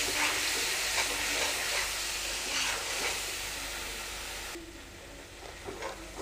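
Chopped onions sizzling in hot oil in a kadhai, with a steel spatula stirring and scraping through them. The sizzle falls away abruptly about four and a half seconds in.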